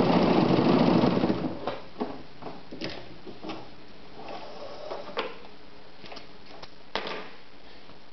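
Vesna Bagat 703 sewing machine running at speed, stitching through a stiff denim-covered plastic cap visor, then stopping about a second and a half in. A few light clicks and knocks follow.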